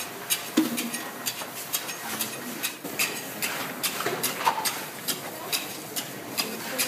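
A run of sharp clicks, about two or three a second, with faint voices underneath.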